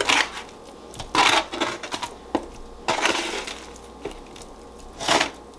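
Plastic meat packaging crinkling and rustling in several short bursts as raw beef stew meat is handled over a colander in a steel sink, with a few light knocks.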